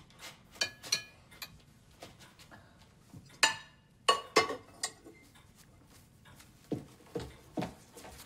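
Cutlery and china clinking at a dinner table: scattered short clinks, some with a brief ring, and a few duller knocks near the end.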